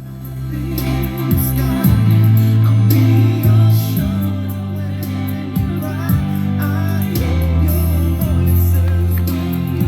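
Aiwa CX-ZKR900HR mini stereo system playing a song with singing, heavy bass and drums. The song fades in over about the first second.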